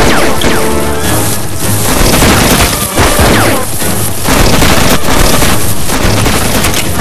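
Loud action-film soundtrack: dramatic music with heavy booms and crashing impacts layered over it.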